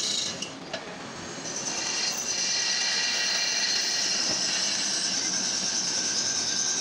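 Pillar drill press running, its bit cutting into a cast-iron pump body casting: a steady high-pitched cutting noise that grows louder about a second and a half in, after two light clicks near the start.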